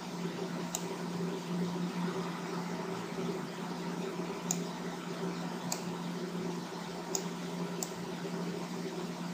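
Steady hum and hiss of a computer's cooling fan, with about five short, sharp mouse clicks scattered through it.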